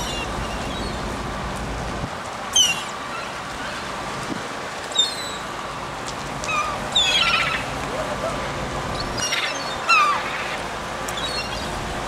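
Gulls calling as they flock to feed: short, sharp, high cries every couple of seconds, with a quick run of calls about seven seconds in, over steady background noise.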